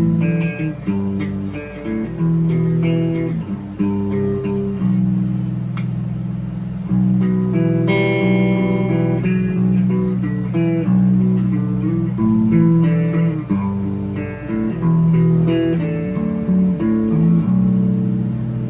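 Ibanez RG7421 seven-string electric guitar with DiMarzio Dreamcatcher and Rainmaker pickups, played amplified: low riffing notes and held notes with melodic lines above, and a run of higher notes about eight seconds in.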